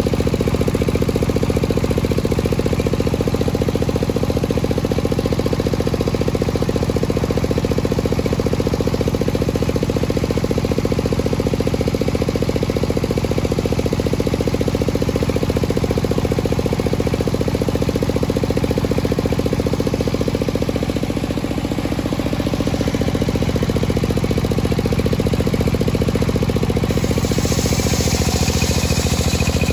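Large circular table saw ripping a long teak beam lengthwise, its drive engine running steadily and pulsing under the load of the cut. Near the end a brighter, hissing cutting noise comes in.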